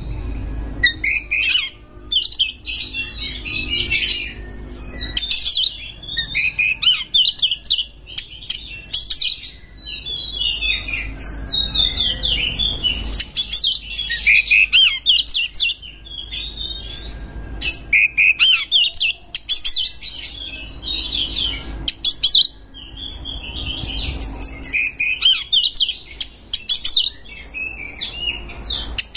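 Oriental magpie-robin singing a loud, varied song of rapid whistles, trills and chattering phrases in quick bursts with short gaps, the kind of song full of mimicked phrases that is played to stir other magpie-robins into singing.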